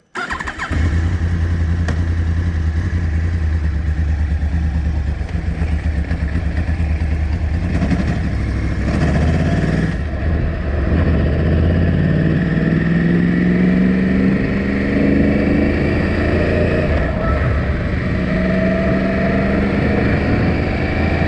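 Yamaha R1 sport bike's 998 cc inline-four engine being run in its break-in period. It comes in abruptly at the start and runs steadily, then the engine speed climbs twice in the second half.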